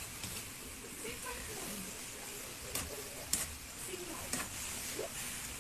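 Food sizzling as it is stir-fried in a pan, seasoned with soy sauce and salt, with a few sharp clicks of the stirring utensil against the pan.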